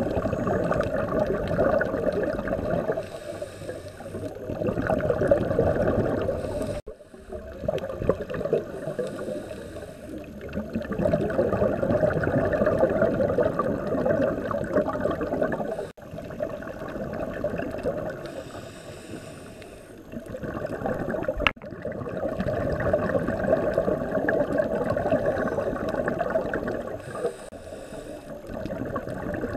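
Scuba diver breathing through a regulator, heard underwater: about four long, bubbling exhalations of several seconds each, with quieter breaks between them where a faint hiss of the inhalation comes through.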